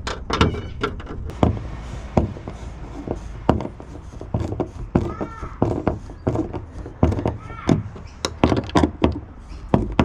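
Irregular knocks, taps and clatter of hardware and fittings being handled while a fishing accessory is mounted on an aluminium boat, with two brief rising-and-falling squeaks near the middle.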